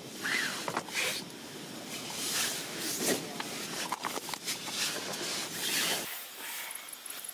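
Fabric rustling in irregular swishes as a person shifts about inside a tent, the padded jacket and tent cloth brushing together; it stops about six seconds in.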